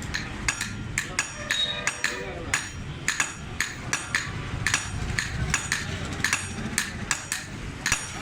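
Hammer blows on iron, about two a second, each with a short metallic ring: a sickle blade being hand-forged.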